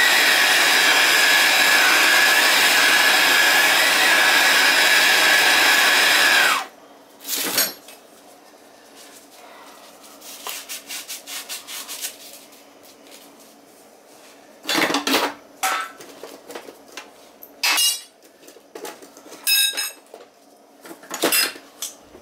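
Plumber's gas hand torch burning with a loud, steady hiss, which cuts off suddenly about six and a half seconds in as the torch is shut off. Then come scattered metallic clanks and knocks of tools being handled in a toolbox.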